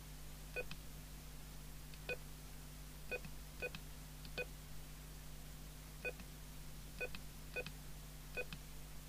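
TTI TCB565 CB radio giving short key-press beeps as its menu buttons are pressed, nine times at uneven spacing of about half a second to a second and a half. A steady low hum runs underneath.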